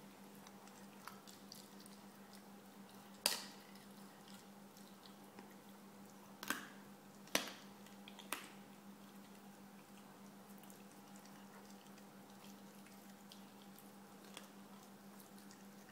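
Puppy chewing a raw chicken wing: faint wet gnawing and small clicks, with four sharp crunches between about three and eight seconds in.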